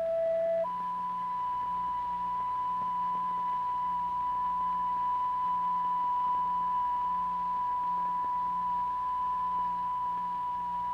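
Steady pure sine tone from the tone generator that drives the cymatics vibration, jumping to a higher pitch just under a second in and then holding, over a faint low hum.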